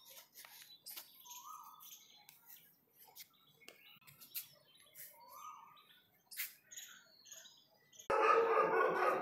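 Faint, scattered bird chirps with a few soft clicks. Near the end a sudden loud sound starts.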